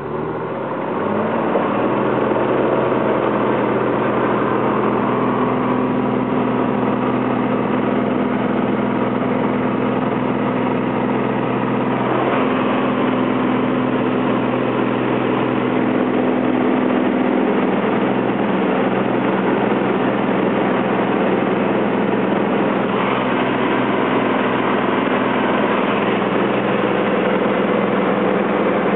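Piper PA-24-250 Comanche's six-cylinder Lycoming O-540 engine and propeller coming up to takeoff power, rising in pitch and loudness over the first two seconds, then running steady and loud at full power.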